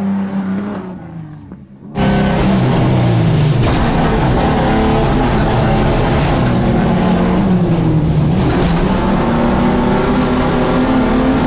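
Modified off-road SUVs, a 1991 Ford Explorer and a 1991 Jeep Cherokee XJ, running at full throttle in a dirt drag race. The sound dips low at first, then the engines come in loud and suddenly about two seconds in, their pitch climbing and breaking as they shift through the gears.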